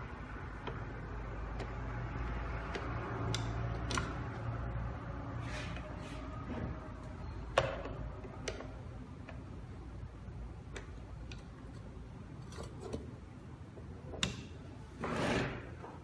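DL201F fingerprint door lock's lever handle and latch being worked by hand: scattered metallic clicks and clacks, one sharper click about halfway, and a short scuff of handling near the end.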